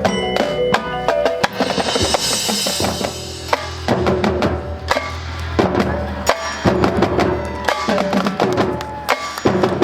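Marching band playing its field show: drums and percussion strike rhythmically under brass and mallet percussion lines, with a cymbal crash about two seconds in.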